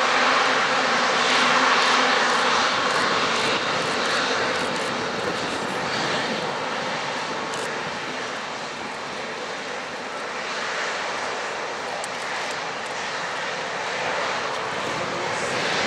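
Airbus A350-900's Rolls-Royce Trent XWB turbofans at taxi power, a steady jet whine and hiss as the airliner rolls past. It is loudest in the first couple of seconds and eases as the aircraft moves away.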